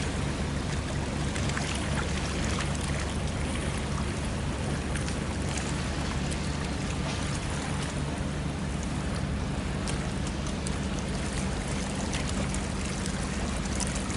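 Small iron boat under way: a steady low engine hum with water rushing and splashing along the hull.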